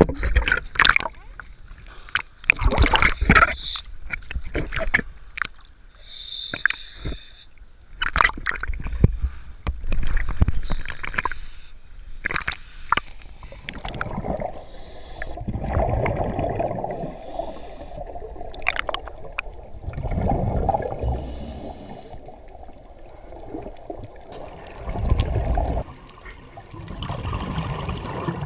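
Water splashing and knocking around the camera at the surface, then underwater scuba breathing: the hiss of a regulator on each inhale and bursts of exhaled bubbles every few seconds.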